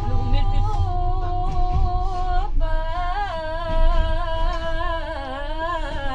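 Group of young people singing a slow melody unaccompanied, with long wavering held notes, over the low rumble of the moving train.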